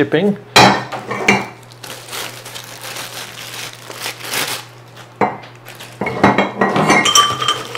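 Powder-coated metal cart parts being handled and set down, clinking and clattering with short ringing tones at irregular moments and a busier run of clinks near the end, with plastic wrapping crinkling.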